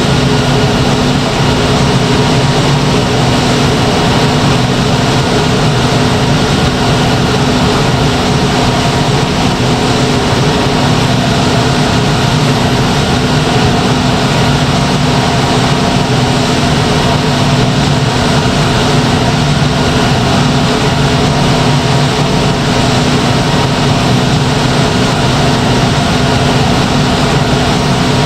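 Steam turbine running steadily: a constant rushing noise with a steady low hum and several fainter high whining tones, unchanging throughout.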